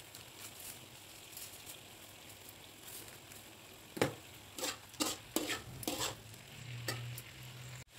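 Tofu cubes with chili, shallot and garlic sizzling in oil in a wok; from about four seconds in a spatula stirs them, scraping and knocking against the wok in a quick run of strokes.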